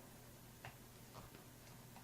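Near silence between drill runs, with four faint short clicks in the second half.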